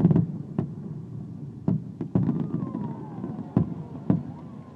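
Fireworks going off: about six sharp bangs at uneven intervals over a steady low rumble.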